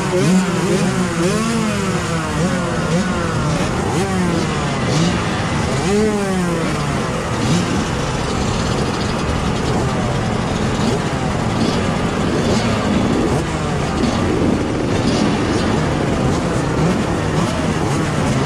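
Several 125cc motocross bikes revving at the start line, throttles blipped up and down again and again. The separate revs stand out in the first several seconds, then merge into a denser mix of engines.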